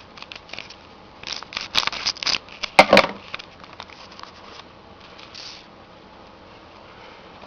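A foil trading-card pack being torn open and its cards handled: a few short crinkling, rustling sounds from about one to three seconds in, the loudest near three seconds, then fainter rustling.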